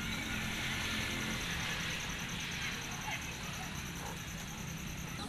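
Toy RC rock crawler's small electric motor and plastic gears whirring as it drives, a steady hiss that eases off after the first couple of seconds.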